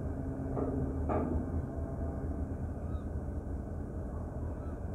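Car ferry's engines running with a steady low rumble as the ship pulls away from the landing, with two short harsh sounds about a second in and a gull calling about three seconds in.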